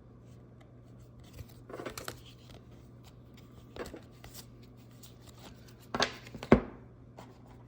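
Trading cards being handled and shuffled: scattered short scuffs and slides of card stock, with a sharper knock about six and a half seconds in, over a steady low hum.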